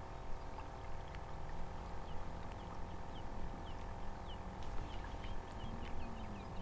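Wind rumbling on the microphone over a faint steady hum, with a bird giving a run of short, high, falling chirps from about two seconds in.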